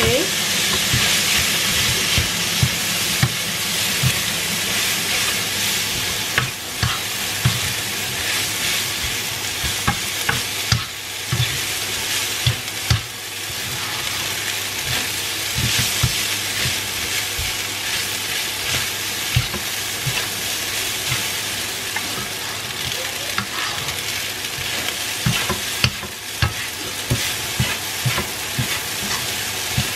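Fried rice with egg and peas sizzling in a hot wok while a wooden spatula stirs and turns it, with frequent dull knocks of the spatula against the pan.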